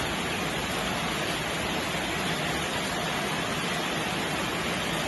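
Steady heavy rain: an even, unbroken hiss with no single drops or thunder standing out.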